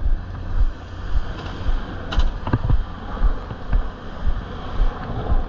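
Vehicle running, heard from inside, a steady low rumble pulsing about twice a second, with a few light clicks about two seconds in.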